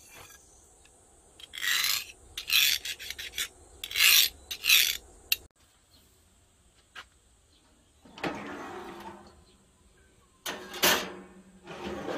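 A hardness test file (HRC 60) scraped across a steel knife blade made from an old circular saw blade, testing how hard the blade is, in about five short rasping strokes in the first half. Later come a couple of separate handling clunks and rattles.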